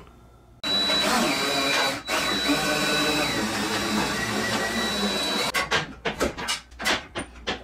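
A motor-driven machine or power tool runs for about five seconds with a steady high whine, then stops, followed by a quick string of clicks and knocks.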